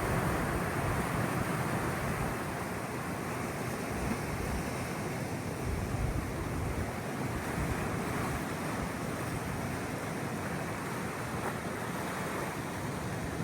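Sea waves washing onto a shore, a steady hiss of surf that swells and eases slowly.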